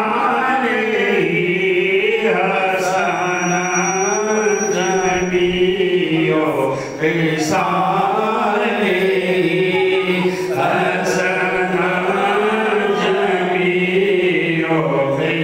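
A man's solo voice singing a naat, an unaccompanied devotional chant, into a handheld microphone. He sings in long, drawn-out phrases, with a short breath about seven seconds in.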